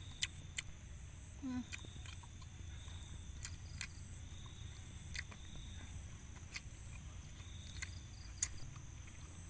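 Eating sounds from grilled fish picked apart and eaten by hand: scattered soft chewing clicks and lip smacks, one sharper click near the end, and a short hummed "mm" about a second and a half in. Steady high chirring of night insects and a low hum run underneath.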